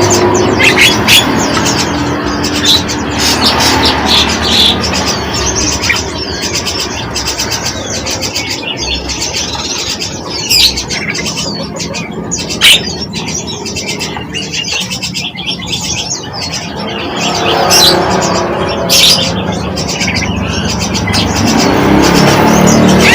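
Small birds chirping and tweeting in many quick, short calls, over a steady low background rumble.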